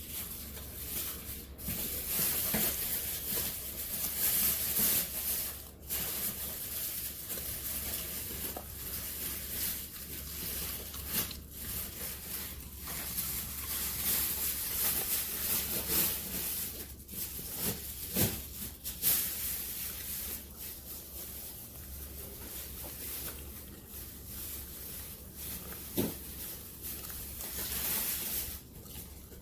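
A dog chewing crisp cabbage: a continuous crackle of crunching and rustling leaves, with many small crisp snaps.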